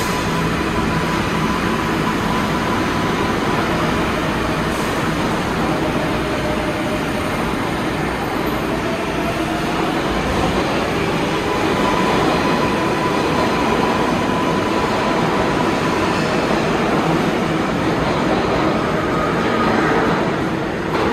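R188 subway train accelerating out of an underground station, a steady, loud rumble of wheels on rail as its cars run past, with a faint slowly rising whine in the middle.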